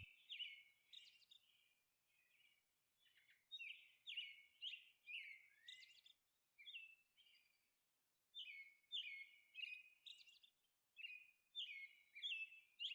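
Faint birdsong: small birds chirping in quick runs of short, high, falling notes, broken by a couple of brief pauses.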